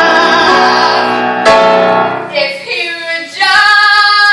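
A woman singing a show tune in a strong, sustained voice with piano accompaniment, holding long notes with a short break about a second and a half in.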